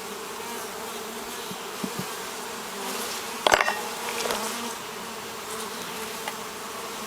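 Honeybees buzzing steadily over an open hive as its frames are inspected, with a few light knocks and one sharp knock about halfway through.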